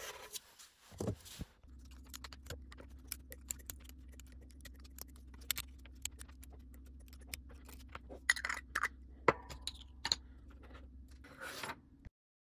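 Small 3D-printed plastic parts being handled and fitted together: many light irregular clicks and taps with some scraping, over a faint steady low hum.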